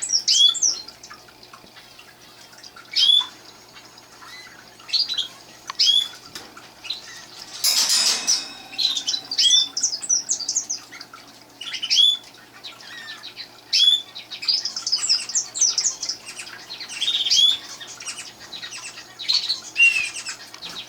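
Roller canaries chirping, short high calls repeated every second or two, with a brief flutter of wings about eight seconds in.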